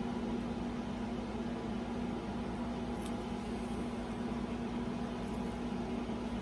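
Steady low hum over a faint even hiss, with one faint click about three seconds in.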